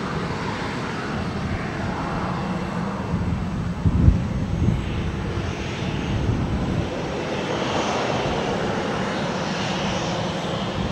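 Jet engines of a Boeing 737-800 (CFM56-7B turbofans) running steadily at low thrust as the airliner rolls along the runway, with a brief low thump about four seconds in.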